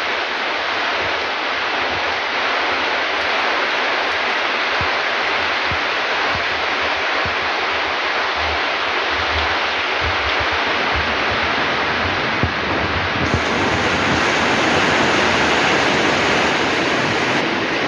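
Heavy rain pouring down in a strong windstorm: a steady, loud rushing noise that swells slightly about two-thirds of the way through.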